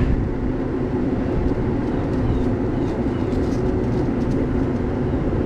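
Steady, low mechanical drone with a constant hum, unchanging throughout.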